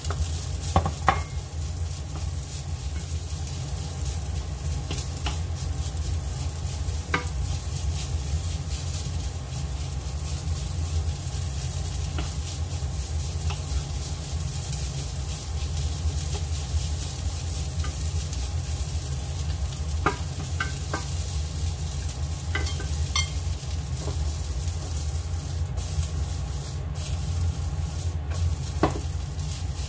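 Rice frying in a pan, sizzling steadily while a wooden spatula stirs and scrapes through it, with a few sharp knocks of the spatula on the pan. A steady low hum runs underneath.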